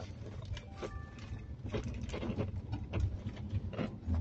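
Road and engine noise inside a moving car's cabin: a steady low rumble with scattered rattles and knocks.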